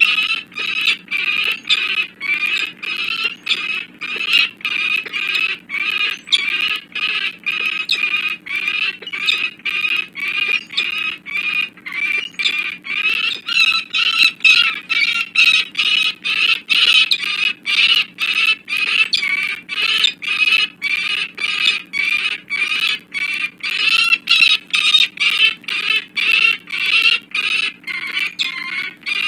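Peregrine falcon cacking: a rapid call repeated about twice a second without a break, the alarm call given during a territorial fight between males.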